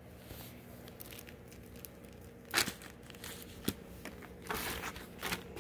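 Plastic packaging rustling and crinkling as it is handled, with two sharp knocks about two and a half and three and a half seconds in, and denser rustling near the end.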